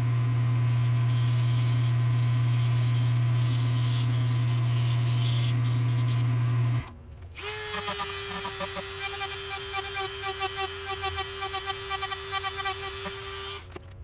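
A loud, steady low hum for about the first seven seconds. After a brief drop, a handheld rotary tool gives a steady whine with a quick pulsing as its bit cuts a spiral groove into a black walnut wand held in the lathe.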